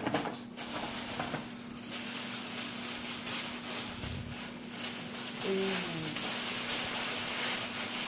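Paper rustling and crackling as a birthday present is unwrapped, with a steady low hum underneath.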